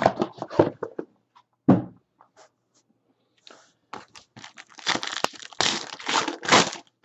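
Plastic and foil wrapping being torn and crinkled open on a box of trading cards. The handling noise is light at first, with a single knock a little under two seconds in. It turns to dense, louder tearing and crinkling in the second half.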